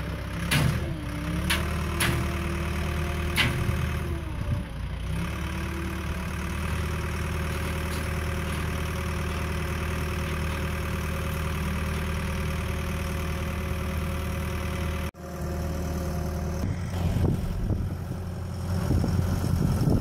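Heavy construction machinery engines running at idle, a steady low drone with a few sharp clicks in the first few seconds. It cuts out briefly about fifteen seconds in, then comes back louder and rougher near the end as the machinery works.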